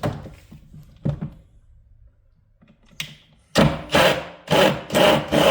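Impact wrench with a 1.5-inch socket hammering in five short bursts a few seconds in, breaking loose a water heater heating element seized by calcium and lime scale from hard well water. A couple of knocks come before it as the socket is fitted.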